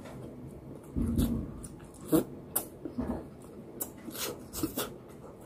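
A man chewing food with his mouth full, close to the microphone: irregular wet smacks and clicks with a few soft low thumps.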